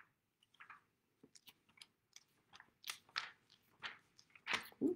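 Thin Bible pages being flipped, rustling and crinkling in a string of short, irregular crackles, loudest near the end. The thin pages are sticking together as they are turned.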